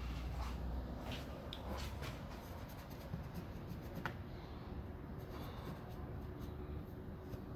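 Plastic roof moulding strip being handled and rubbed against the car's roof: soft scraping with small ticks, one sharper click about four seconds in, over a faint low hum.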